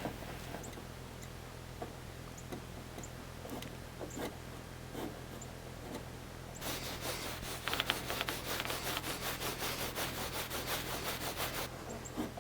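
Faint light taps, then about two-thirds of the way in, some five seconds of fast back-and-forth rubbing strokes on a panel that stop suddenly.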